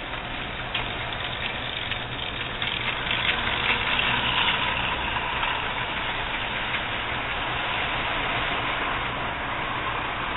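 HO-scale model train running past: the Bachmann 4-8-4 model steam locomotive's small electric motor whirring and its wheels and cars rolling along the track, a steady running noise that gets louder about three seconds in as the train passes close, then settles.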